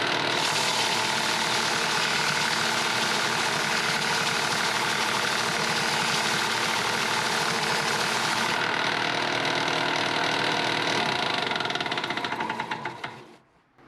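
A small, worn belt sander runs steadily with a rough, knocking drone, then is switched off about 11 seconds in and runs down to a stop near the end. It sounds a little poorly because it is on its way out.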